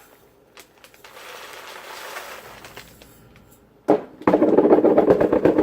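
Dry uncooked rice grains pouring and rattling as a cup of rice is measured out. A soft trickle first, then from about four seconds in a loud, dense rattle of many grains.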